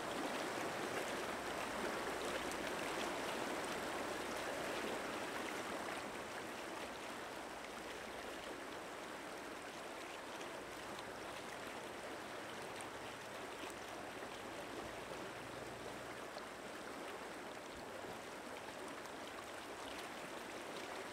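Shallow river rushing and splashing over rocks, a steady water sound that eases slightly after about six seconds.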